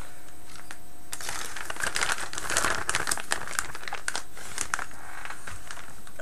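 Plastic bag crinkling as resin model parts are handled inside it: dense, irregular crackling that starts about a second in.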